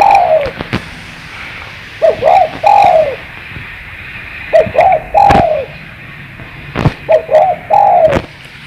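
Spotted dove cooing: four phrases about two and a half seconds apart, each two or three short notes and then a longer falling coo. A few sharp clicks come between the phrases.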